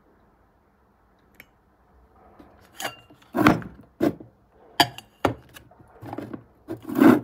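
Handling noise of a power inverter and a plastic clamp lamp being moved on a wooden table, with the lamp's plug worked at the inverter's socket. After a couple of quiet seconds, a string of knocks, clicks and thumps starts about three seconds in; the loudest come about three and a half and seven seconds in.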